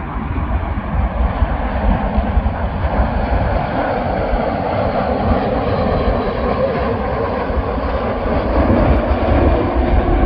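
Jet airliner engines giving a steady, loud rush of noise that swells a little partway through. Wind gusts buffet the microphone with a low rumble.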